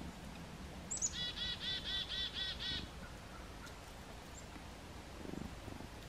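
Black-capped chickadee giving its chick-a-dee call: a short high opening note, then a run of about seven evenly repeated dee notes, starting about a second in.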